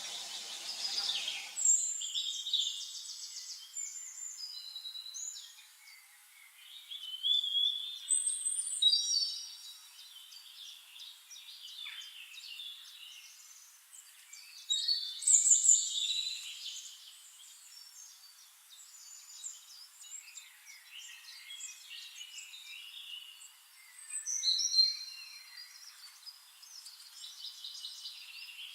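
Several birds chirping and singing in short, varied whistled phrases and trills, with louder bursts of song every several seconds.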